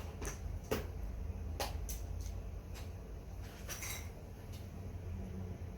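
A few light clicks and knocks of objects being handled, over a low steady hum.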